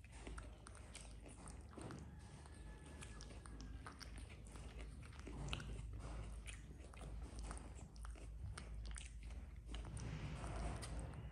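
Soft chewing and crunching of fresh spring rolls with raw lettuce, with irregular small clicks and crackles of food being bitten and handled.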